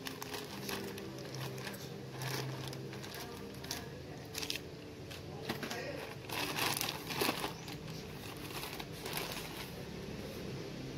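Thin plastic courier bag crinkling and tearing as it is pulled open by hand, in scattered rustling bursts that are loudest from about six to seven and a half seconds in.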